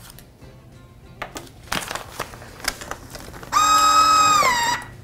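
Plastic vacuum-sealer bag crinkling as it is handled. About three and a half seconds in, a FoodSaver V4400 vacuum sealer's motor starts with a loud, steady whine, then falls in pitch and stops about a second later.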